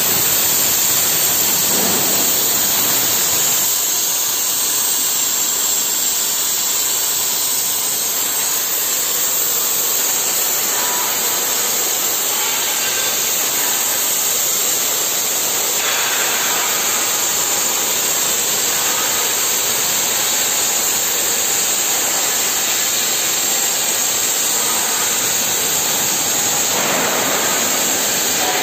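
Cutting torch of a CNC plate-cutting machine cutting through mild steel plate: a steady, loud hiss with no breaks.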